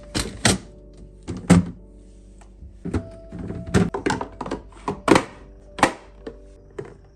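Hard plastic refrigerator drawer and door bins knocking and clacking as they are slotted back into place, about a dozen sharp, irregular knocks. Soft background music plays under them.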